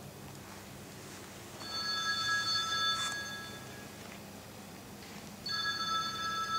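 Buddhist bronze bowl bell struck twice, about four seconds apart. Each stroke rings with a clear, high, steady tone that fades over about two seconds.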